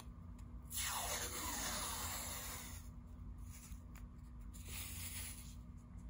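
Wide yellow adhesive tape being pulled off its roll: a loud ripping unpeel starting about a second in and lasting about two seconds, its pitch falling, then a shorter, quieter pull near the end. The tape is being laid across a keyboard circuit board.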